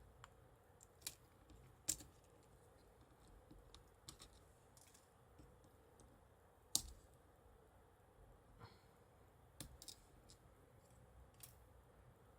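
Faint, sparse clicks of small flex-cable connectors being unclipped from a smartphone's circuit board, about half a dozen sharp ticks spread through otherwise near silence.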